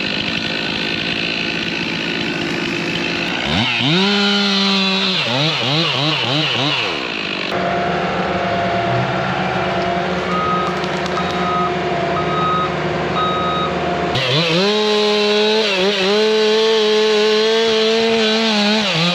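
Two-stroke chainsaw revving up to full throttle and cutting, its pitch wavering under load. In the middle stretch a steadier engine drone runs with a backup alarm beeping about every three-quarters of a second, before the chainsaw revs high again.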